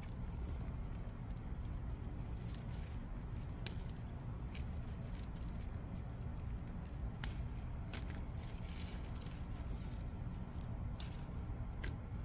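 Steady low rumble of outdoor air on a handheld microphone, with rustling pea vines and a few sharp clicks as a hand handles the plants and pods.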